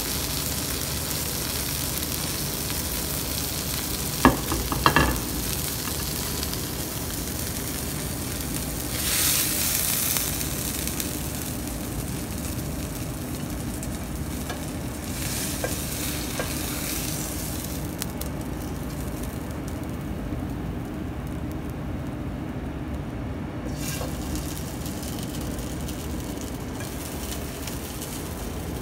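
Fish fillets sizzling in oil in a non-stick frying pan over a low rumble, with two sharp clicks about four seconds in and a louder burst of sizzle around nine seconds. The sizzle thins out after about eighteen seconds, leaving the steady low rumble.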